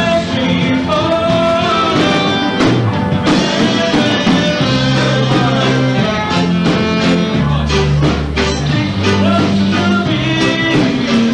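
Live band playing amplified pop music through a PA, with a steady bass line and electric guitar.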